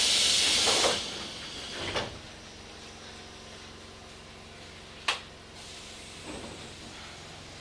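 Tobu 8000 series train's pneumatic doors closing: a loud hiss of air for about the first second, then a knock about two seconds in. A sharp click comes about five seconds in, over the car's low steady hum.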